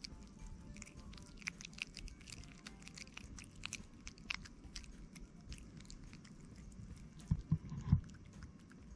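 Crunchy chewing: a scattered run of small crisp clicks, with a few low thumps about seven seconds in.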